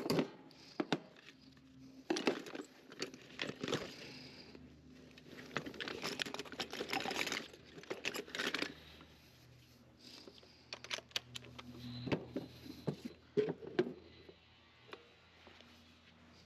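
Handling noise: irregular clicks, light knocks and crinkly rustling, over a faint steady low hum.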